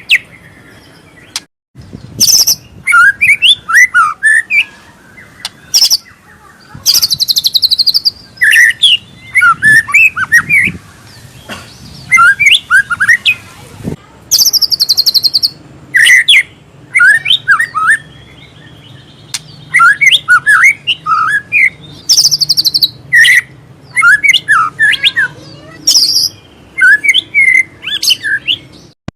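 White-rumped shama singing loudly and vigorously, phrase after phrase with short pauses between them. The phrases mix quick whistled notes with fast, very high trills, a varied song packed with mimicked calls.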